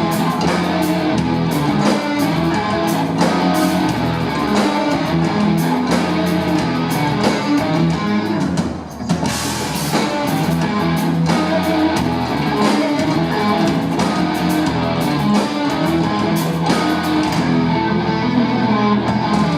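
Rock band playing live, an instrumental passage of electric guitars, bass and drum kit with no singing. The band drops out briefly about halfway through, then comes straight back in.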